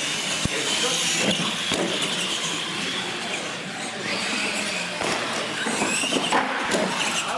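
Radio-controlled monster trucks racing, their electric motors and gears giving a high whine that rises and falls in pitch as they speed up and slow down. Tyre noise on the smooth floor runs underneath, with a few sharp knocks.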